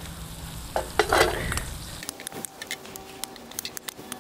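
Metal tongs clicking and scraping against a hot frying pan and a metal tray as pan-fried scallops and cherry tomatoes are lifted out, with a light sizzle from the pan. The clicks come thick and fast in the second half.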